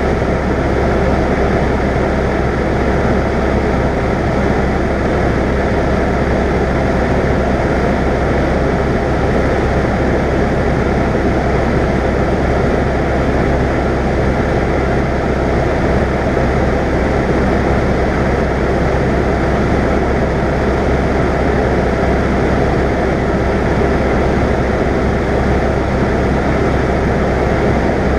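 Cessna 172's piston engine and propeller running steadily in cruise, heard inside the cabin as a constant loud drone.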